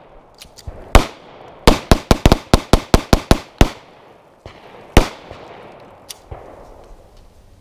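Handgun gunfire: a single shot about a second in, then a rapid string of about ten shots in under two seconds, and one last shot a little later, each a sharp crack with a short echo.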